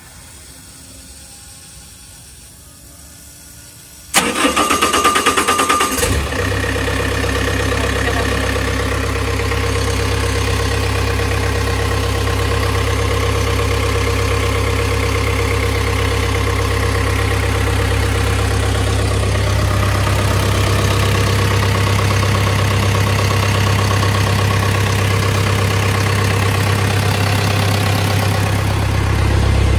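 A Lonking CDM6060 mini excavator's diesel engine is cranked by the starter for about two seconds, four seconds in, then catches and settles into a steady idle. This is the engine being restarted during an oil and filter change.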